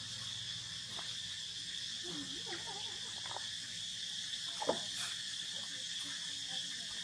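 Steady high insect drone, with a few short wavering squeaks from the macaques about two to three seconds in and one sharper, louder squeak about four and a half seconds in.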